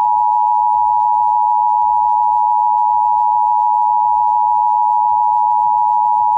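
Emergency Alert System attention signal: the 853 Hz and 960 Hz sine tones sounded together as one steady, loud dual tone. It announces the tornado warning voice message that follows.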